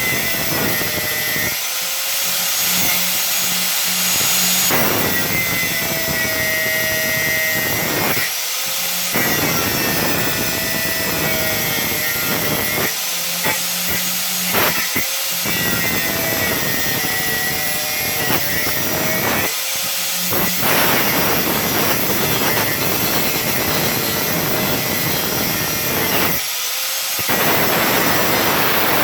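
Angle grinder running continuously as it grinds through seized metal rivets, its high whine rising and falling in pitch as the disc is pressed into the metal and eased off.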